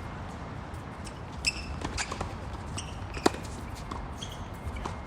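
Tennis balls being struck and bouncing: a few sharp pops at uneven intervals, the loudest a little past three seconds in, with a few short high squeaks, over wind rumbling on the microphone.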